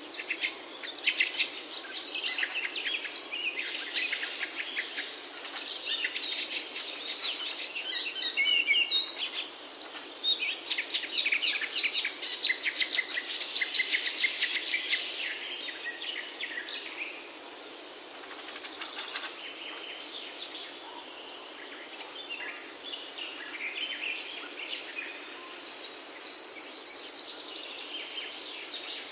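Several forest birds chirping and singing together over a steady background hiss, with a dense chorus of rapid chirps and trills that thins to scattered calls a little past halfway.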